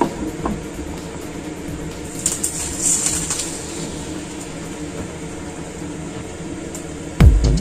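Steady low mechanical hum, like a fan or air conditioner running, with faint clinks and rustles of a bottle and a pan being handled. Near the end, loud electronic music with a heavy beat starts abruptly.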